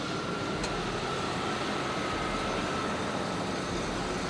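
1997 Ford F-250's 460 V8 running steadily as the truck drives past.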